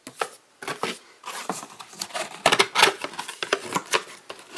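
Cardboard camera box being folded shut and handled: a quick run of rustles, scrapes and light taps.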